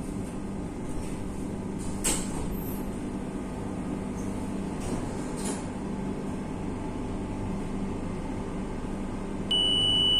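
Madrid Metro series 9000 train carriage humming steadily, with a sharp click about two seconds in. Near the end a loud, steady, high-pitched warning tone sounds, the door-closing signal.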